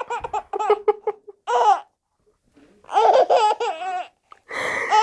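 Four-month-old baby laughing in short high-pitched fits, in two bouts with a pause between, with a cough near the end.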